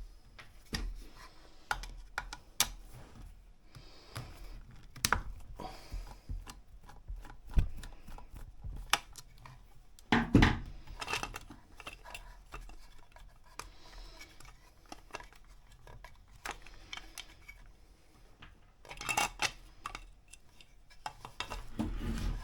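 Parts of a Crown CT11001 router being handled and taken apart by hand: scattered small clicks and clinks. A louder clatter comes about ten seconds in and again near the end.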